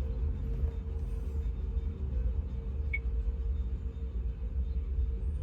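Steady low rumble of a car idling, heard inside the cabin, with a constant hum over it and one short high chirp about three seconds in.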